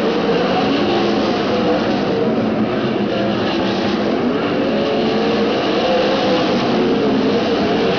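A pack of winged sprint cars' V8 engines racing on a dirt oval: several loud engine notes wavering up and down at once as the throttles open and close.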